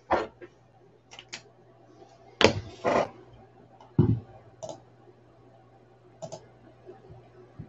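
Scattered clicks and knocks of things being handled on a desk, a few sharp ones and some heavier thuds, the loudest about two and a half and four seconds in, over a steady low hum.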